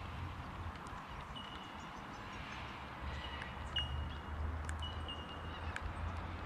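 Birds calling with short, high whistled notes, repeated several times, over a low rumble and scattered faint ticks.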